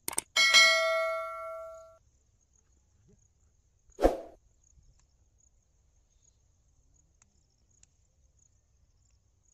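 Subscribe-button sound effect: a quick click, then a single bell ding that rings out and fades over about a second and a half. A short knock follows about four seconds in.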